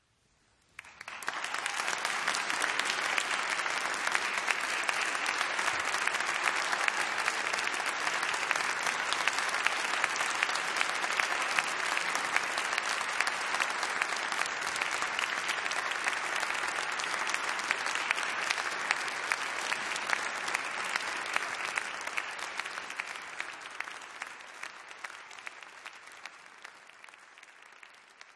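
Audience applauding: the clapping starts suddenly about a second in, holds steady, and dies away over the last several seconds.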